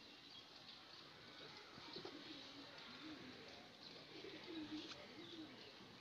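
Near silence with a dove cooing faintly in the background, a few low soft coos from about two seconds in.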